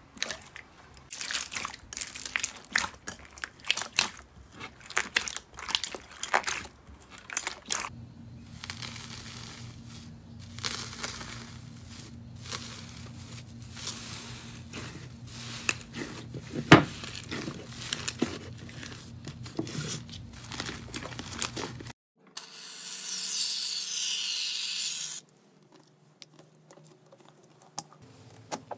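Slime being squeezed and pressed by hands. It starts as a run of crisp crackles and crunches from foam beads in clear slime, then sharper scattered crackles, with one loud crack, as a crusted slime is broken over a faint steady hum. A brief hiss follows, then near silence.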